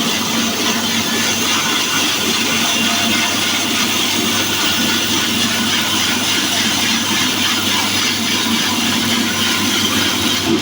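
Horizontal band sawmill running steadily, a constant machine hum under dense sawing noise.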